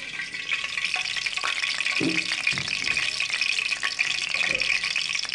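Hot cooking oil sizzling and crackling in a pan, a steady hiss with fine pops throughout.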